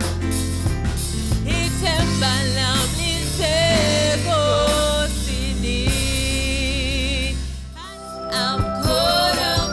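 Live gospel worship music: a woman singing a held, wavering melody over keyboard, bass and drums. The music dips briefly about eight seconds in, then picks up again.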